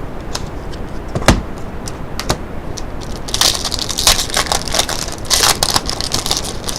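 Trading-card pack wrapper crinkling and cards being handled: scattered sharp clicks, one louder knock about a second in, then a stretch of dense crackling from about three seconds to near the end.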